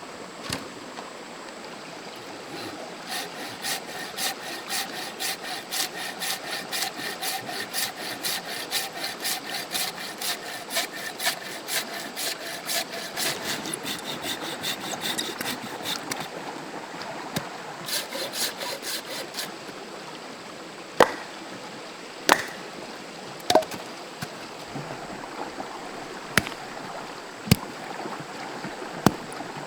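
A hand tool rasps back and forth on wood in quick rhythmic strokes, like sawing, for about thirteen seconds, with a short second bout soon after. It gives way to a series of single sharp knocks roughly a second apart. A stream runs steadily underneath.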